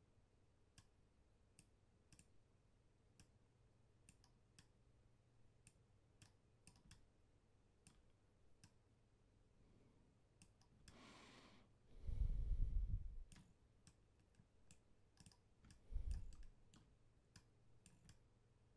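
Faint computer mouse clicks, scattered about one every half-second to second. About eleven seconds in comes a brief hiss, then a louder low rumble on the microphone lasting about a second, and a shorter one about four seconds later.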